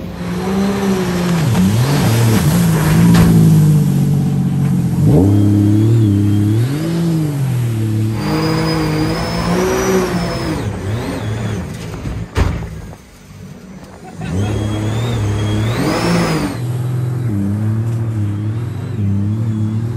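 Jet boat engine revving up and down as the boat is driven hard, its pitch rising and falling with the throttle. About two-thirds of the way in it drops off briefly, then picks up again.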